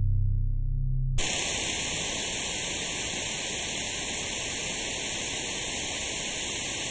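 A low, sustained music drone cuts off about a second in, replaced at once by a steady hiss of static, like white noise.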